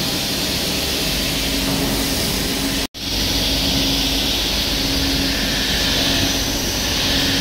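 Large CNC gantry milling machine with a right-angle milling head running: a steady machining noise with a hum that comes and goes. The sound drops out briefly about three seconds in.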